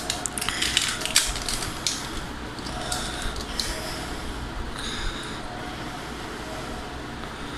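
The phone's charging cable being unwrapped and handled: plastic packaging crinkling with small clicks, busiest in the first second and a half, then softer rustling.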